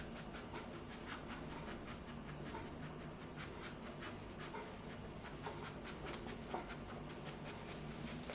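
A very young puppy panting softly, with faint scattered clicks and rustles as it shifts on cloth trousers.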